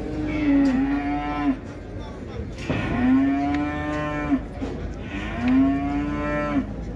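Rams in a packed flock bleating: three long, low, steady calls of about a second and a half each, one after another with short pauses between.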